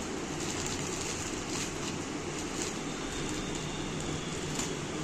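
Clear plastic parcel wrapping crinkling in short, faint bursts as fingers pick at it, over a steady background rumble with a faint high whine.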